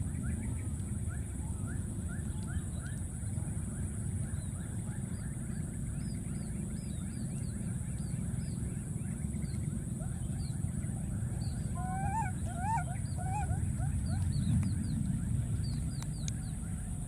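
Many short chirping animal calls over a steady low rumble and a constant high hiss, with a louder, warbling call about twelve seconds in.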